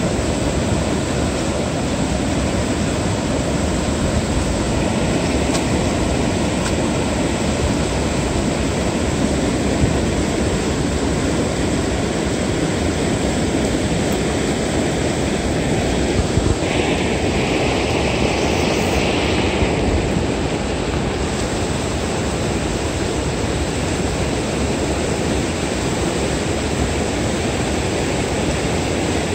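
Steady rushing of river water pouring over a weir, a constant loud roar of noise. A brighter hiss rises above it for a few seconds past the middle.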